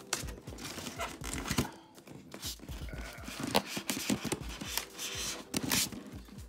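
Styrofoam packaging being handled and pried open: the foam shell rubs, creaks and scrapes, with irregular knocks and clicks as it is moved.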